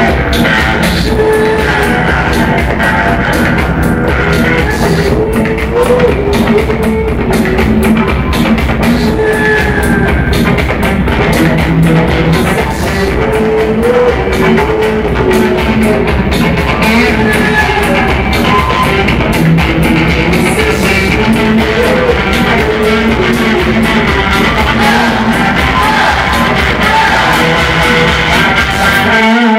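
Live rock band playing loudly: distorted electric guitar and bass guitar over a driving beat, with a woman singing into a microphone. The music cuts off abruptly right at the end.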